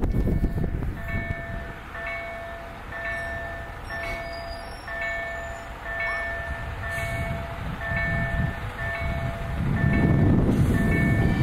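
Level-crossing warning bell ringing, an electronic ding repeated about twice a second, sounding for an approaching train. A low rumble grows louder near the end.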